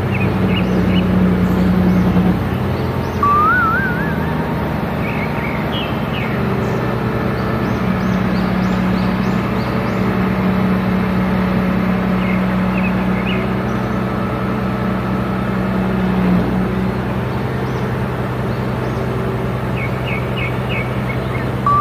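Truck-mounted crane's engine running steadily, its speed shifting a few times, with birds chirping and a rising warbled bird call about three seconds in and again at the end.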